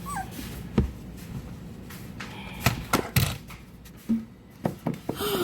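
Several sharp knocks and taps from handling, with a puppy's short wavering whimper right at the start and a falling whine near the end.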